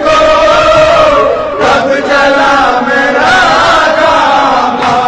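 A noha, an Urdu lament, chanted by voice in long, wavering held notes.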